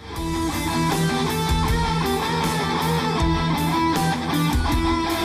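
Intro theme music: rock-style guitar with a steady beat, opening the news show.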